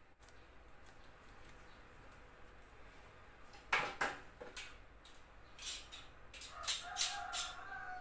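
A rooster crowing near the end, one drawn-out call, after a loud short animal call and a few sharp noises about halfway.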